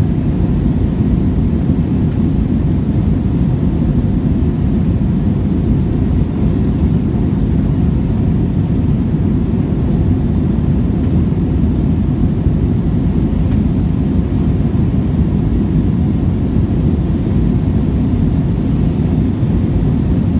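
Steady low rumble of an Airbus A321's engines and rushing airflow heard inside the passenger cabin during the climb after takeoff.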